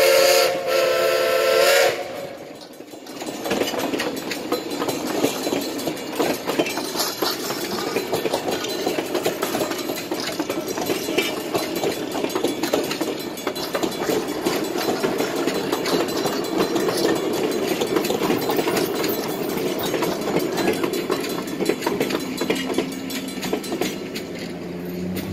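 A steam locomotive's whistle blows with several tones at once and stops about two seconds in. Then passenger coaches roll steadily over the grade crossing, their wheels clicking, until the train has passed near the end.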